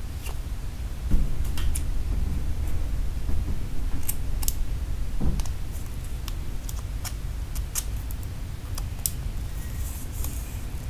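Hands handling watch packaging: scattered light clicks, taps and rustles of cardboard and plastic, with a soft knock about a second in, over a steady low rumble.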